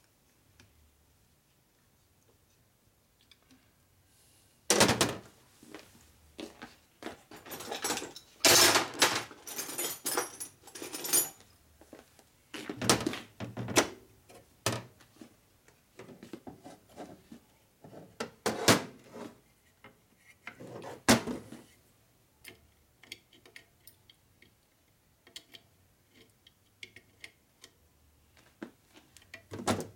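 Metal parts and tools handled on a metal workbench: scattered knocks and clunks, with a longer rattle of small metal hardware about eight to eleven seconds in.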